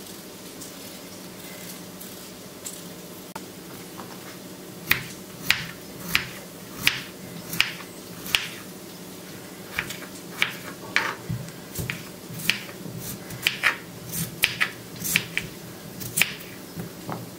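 Kitchen knife cutting a raw peeled potato on a bamboo cutting board: about twenty sharp chops of the blade against the wood, starting about five seconds in and coming irregularly, one or two a second. A steady low hum sits underneath.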